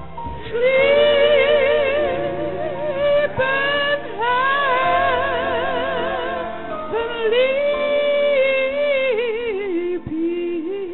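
A woman singing into a microphone in long phrases of held notes with wide vibrato, over sustained organ chords.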